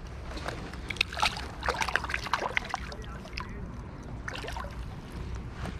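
Water splashing close at hand in irregular bursts, mostly in the first half and again briefly near the end, over the steady rush of a flowing river.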